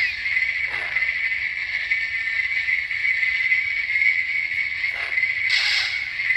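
Plecter Labs Nano Biscotte lightsaber soundboard playing a sound font through a small 28 mm speaker: a loud, steady buzzing blade hum, with a swing swoosh about a second in and another near the end.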